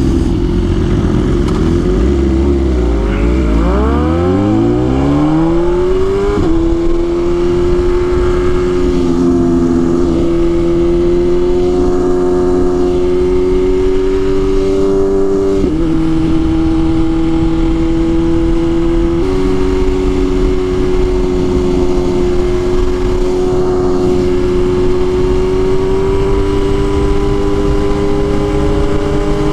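BMW S1000RR's inline-four engine accelerating: its pitch climbs steeply for a few seconds, then holds high and nearly steady at cruise, with small dips and steps now and then, and rises again at the very end.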